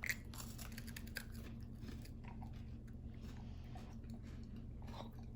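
Faint chewing and crunching of a hazelnut wafer cookie, with scattered small crisp clicks over a low steady hum.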